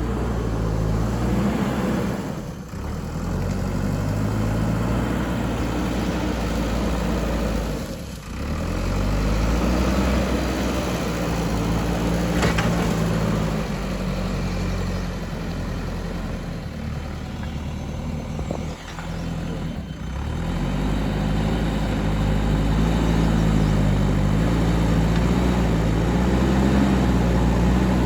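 Diesel engine of a JCB backhoe loader running under working load, its note rising and falling as it digs and moves dirt, with a few brief dips in level.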